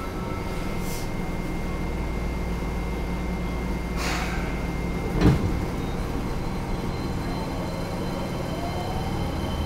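Fukuoka City Subway 1000 series train at a standstill, then starting to move, heard inside the car: a steady low hum from the train, a short hiss of air about four seconds in and a single thud just after. Near the end a faint rising whine comes in as the motors start to pull the train away.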